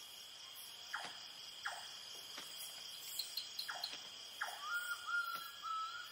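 Night insect chorus of crickets keeping up a steady high-pitched trill, with a few short downward-sliding calls from other animals and a faint warbling call near the end.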